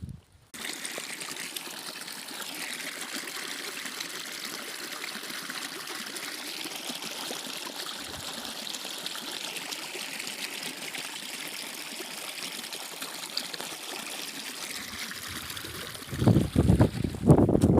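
Steady trickling and running water of a small stream. Near the end, loud gusts of wind buffet the microphone.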